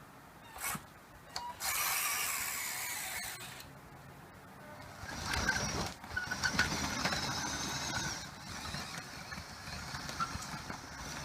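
Small electric gear motors of a scale RC track loader whining in several bursts with short pauses between, as the model drives and works its boom.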